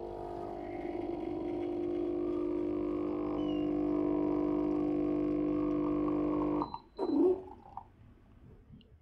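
Single-serve coffee machine's pump humming steadily while it dispenses coffee into a glass beaker. The pump cuts off suddenly after about six and a half seconds. A short gurgling spurt follows as the brew finishes, then faint trickling.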